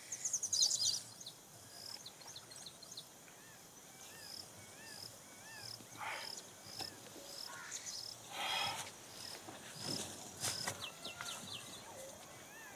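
Evening countryside ambience: crickets chirping in a steady, even pulse, with small birds calling now and then.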